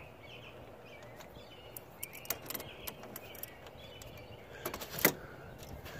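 A few light clicks and taps from an adjustable wrench and the negative cable clamp being worked off a car battery post, with a sharper clack about five seconds in, over a quiet outdoor background.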